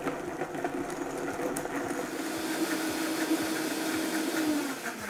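Vitamix A3500 blender motor running at a steady pitch, blending a liquid chili marinade. It winds down and slows near the end.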